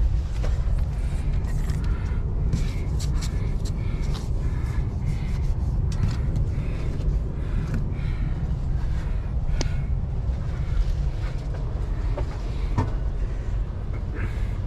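Steady low rumble inside an intercity train carriage, with faint voices of other passengers and a few light clicks.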